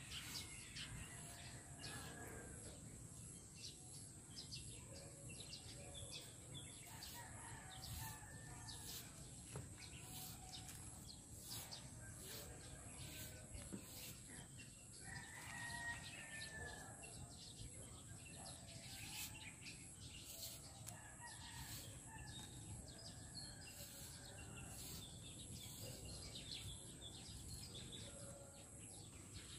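Faint rural background with a rooster crowing, its clearest crow about halfway through, along with scattered light clicks and bird chirps.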